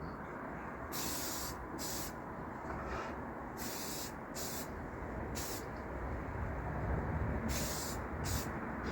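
Aerosol spray paint can spraying in short hissing bursts, about seven of them, over a low background rumble.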